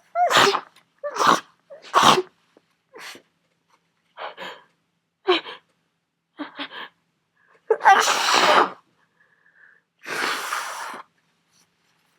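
A person with a cold in a sneezing fit: three sharp sneezes in quick succession in the first couple of seconds, then another loud one about eight seconds in, with short gasps and breaths between.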